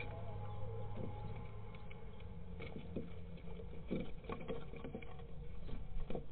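Common swifts moving about in a wooden nest box: claws scrabbling and wings brushing against the wood. The scratchy clicks grow busier over the last few seconds as a second adult comes in to the nest, over a steady low hum.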